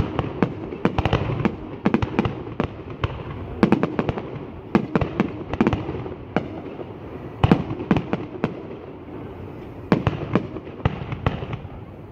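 Fireworks going off: an irregular run of sharp bangs and pops, several a second, with the loudest bangs about seven and a half and ten seconds in.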